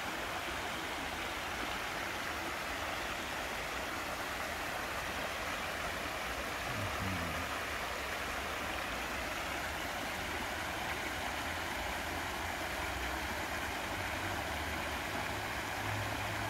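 Steady rush of shallow stream water running over rocks and small rapids.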